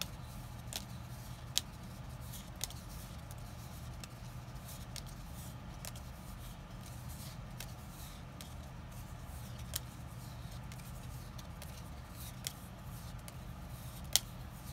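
Magic: The Gathering trading cards being flipped through by hand and dropped onto a pile, with a few sharp snaps and clicks of card stock over a steady low hum.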